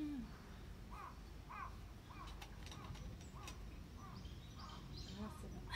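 Crows cawing in a steady series of short, faint caws, about two a second.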